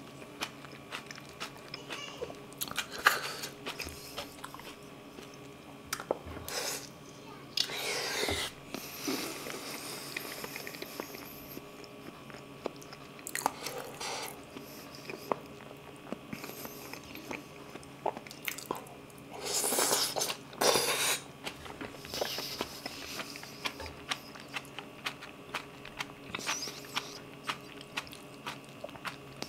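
Close-miked wet chewing and mouth sounds of eating braised kimchi strips by hand, with many small clicks and smacks. Two longer, louder slurps come around eight and twenty seconds in.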